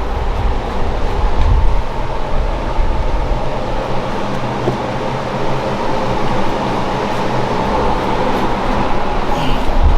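Steady machine hum with a high, even whine and lower steady tones, under uneven low rumble.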